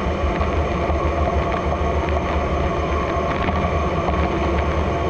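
DN Solutions Puma TT2100SYYB CNC lathe rough-turning a Haynes 188 superalloy part with a CNMG turning insert under flood coolant spray. The spindle, cut and coolant make a steady machine noise with a low hum and a few held tones.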